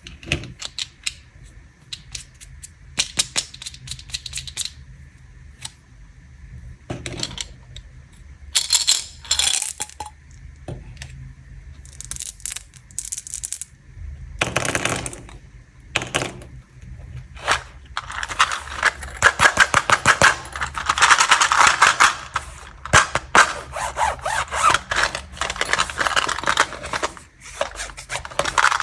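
Candy and toy packaging handled and opened by hand: plastic wrappers crinkling and rustling, with scattered sharp clicks and taps. A long stretch of dense crinkling in the second half is the loudest part.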